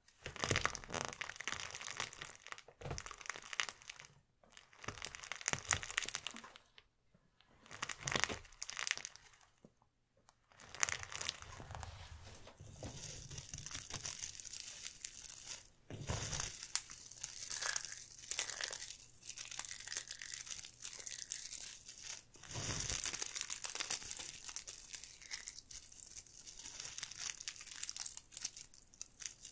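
Small hard-plastic toy spiders crackling and crunching under a bicycle tyre on concrete, in separate bursts over the first ten seconds. After that comes near-continuous plastic rustling and clicking as hands sift through and scoop up the spiders, with a couple of deeper thumps.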